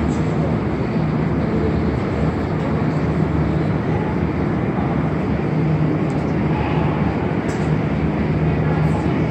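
Montreal Metro AZUR (MPM-10) train standing at an underground platform: a steady hum and rumble from the train's equipment, with a low tone that comes and goes, mixed with the station's noise. A few faint clicks.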